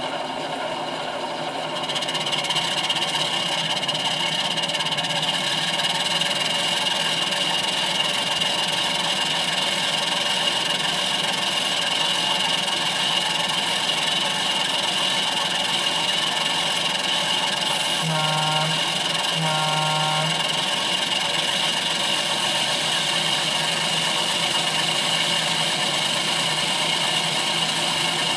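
Sound decoder in a model CNJ DRX6-4-2000 double-ender locomotive playing a diesel engine idling, through the model's small onboard speakers. The engine gets a little louder about two seconds in and then runs steady. About three-quarters of the way through, the decoder sounds two short horn toots.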